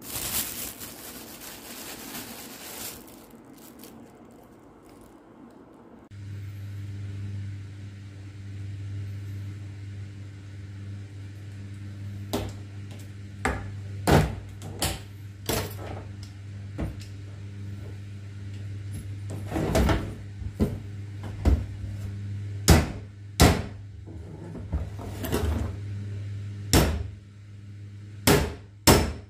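Short sharp knocks and clatters of seafood and utensils handled on a plastic cutting board in a steel kitchen sink, over a steady low hum that starts about six seconds in.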